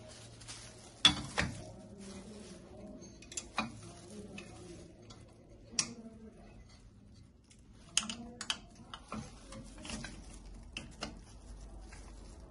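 Stainless steel shaker cups and clamp parts of an electric milk-tea shaker being handled and fitted by hand: scattered metallic clicks and knocks, the loudest about a second in.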